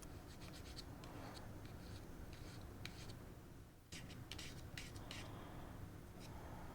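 Faint scraping and small irregular ticks of a tool working solder paste across a metal reballing stencil, with a brief pause just before the middle.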